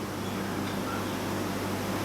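Steady low machine hum with an even hiss, growing slightly louder.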